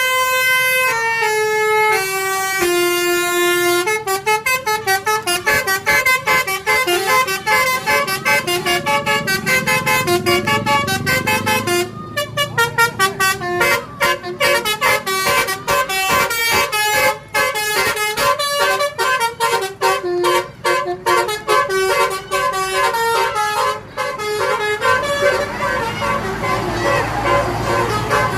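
Indonesian telolet multi-tone bus horn (Basuri type) playing a tune. First a few held notes step downward, then a long run of quick, short notes follows.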